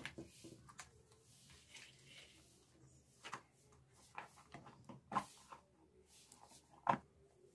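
Light plastic clicks and knocks as the front cover of a plastic switch-and-socket extension box is handled and pressed onto its base. There are a handful of separate taps, with the sharpest click near the end.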